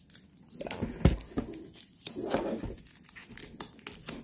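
Crinkling of plastic shrink wrap and the rustle of a cardboard box being handled, with a single knock about a second in as the box is set down.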